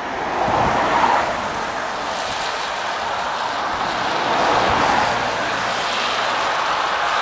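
Steam locomotive working a train, heard at a distance as a steady rushing roar of exhaust and steam. It swells about a second in and again around five seconds in.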